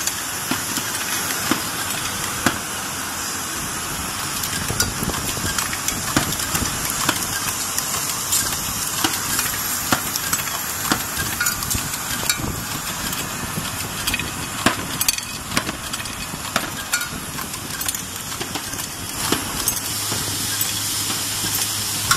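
Automatic aluminum electrolytic capacitor assembly machine running: a dense, irregular clatter of small clicks and taps over a steady mechanical hiss.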